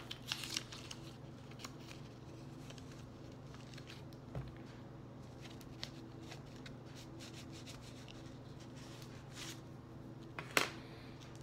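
Faint rustling and rubbing of a paper squishy being filled with stuffing and poked with a pencil, over a steady low hum. A few light taps are scattered through it, with a sharper knock near the end.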